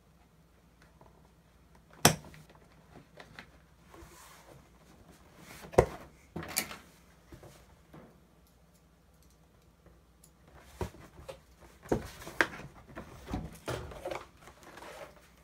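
Scattered clicks and knocks of a small screw and hardware being handled and fitted through a drilled hole: one sharp knock about two seconds in, two more near the middle, then a quicker run of knocks and rattles in the last five seconds.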